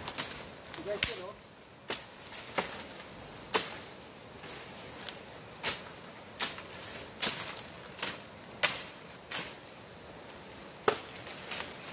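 Irregular sharp snaps and crackles of twigs, leaves and dry fronds trodden and pushed aside while walking through dense forest undergrowth, about a dozen over the stretch.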